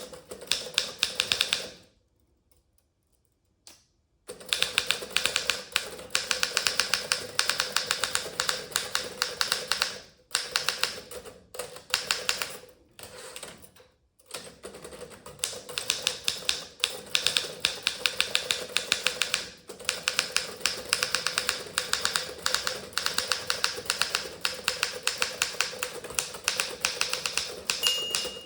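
Fast typing on a Remington Senior Writer (Torpedo 17a) manual portable typewriter: rapid, crisp key and typebar strikes, with a pause of about two seconds near the start and a few short breaks later. A brief ring sounds near the end.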